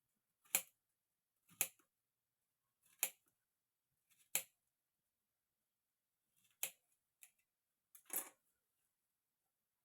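Kitchen knife cutting zucchini into pieces on a cutting board: a series of separate sharp chopping clicks, roughly one every second or so, with a short pause midway.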